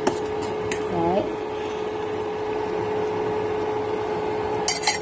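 Steady kitchen hum with a constant tone, over a pot of stew cooking. A few light clicks come in the first second, and a quick cluster of sharp clicks comes near the end.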